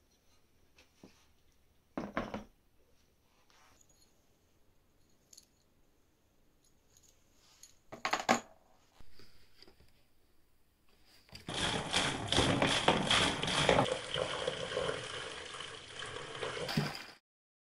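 Rusty iron scale parts set down in a plastic tub, two short knocks about two and eight seconds in. Then a stream of water pours into the tub onto the metal parts, from about eleven seconds until it cuts off suddenly near the end.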